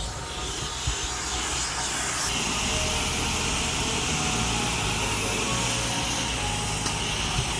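Pressure washer spraying water in a steady hiss over a low machine hum; the spray hiss strengthens about two seconds in.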